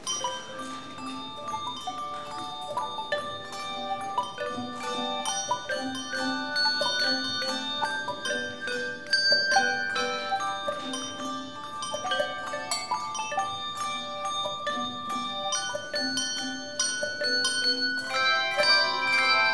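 Handbell choir playing a tune: many handbells ringing one after another, their notes overlapping as they decay, with a lower bell note repeating under the melody. A louder cluster of bells rings near the end.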